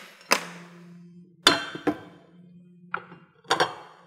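Parts of a Rube Goldberg chain-reaction machine built from camera gear knock and clink against each other. There are about five separate hits spread out, the loudest about a second and a half in, some with a short metallic ring.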